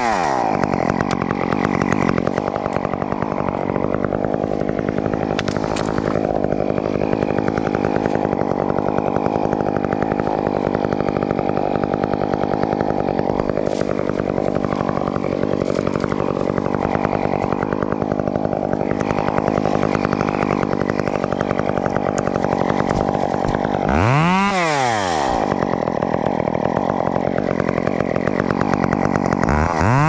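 Chainsaw running steadily at high revs, as when cutting through wood. Its pitch swings briefly up and down about 24 seconds in and again near the end.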